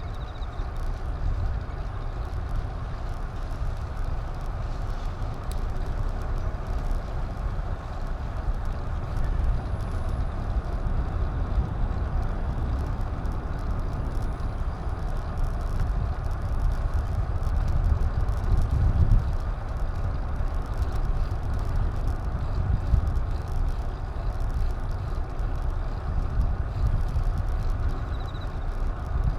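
Steady wind rumble and road noise picked up by an action camera while riding, heaviest in the low end.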